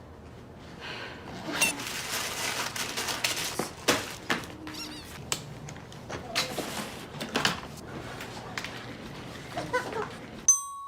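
Faint baby babbling and fussing mixed with small knocks and rustles. Just before the end, after a brief gap, a steady beep-like tone begins.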